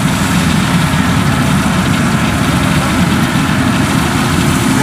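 Kubota combine harvester's diesel engine running steadily close by, an even low rumble.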